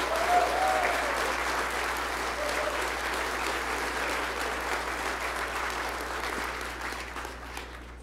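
Large indoor crowd applauding, with shouts and whoops of cheering in the first second. The clapping slowly dies away toward the end.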